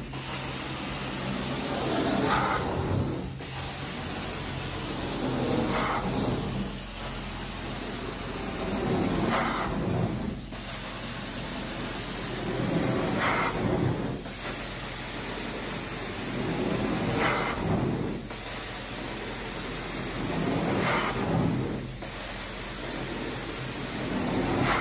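Carpet-extraction wand spraying cleaning solution into a heavily soiled carpet and vacuuming it back up: a steady rushing hiss that swells with each stroke of the wand, about every three and a half seconds, seven strokes in all.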